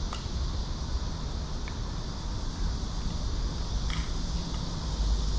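Wind buffeting the microphone as a low rumble over a steady high hiss of outdoor background noise, with a faint click about four seconds in.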